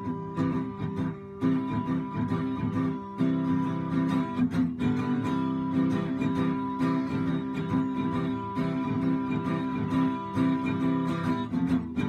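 Sunburst acoustic guitar strummed in a steady rhythm, chords ringing between the strokes.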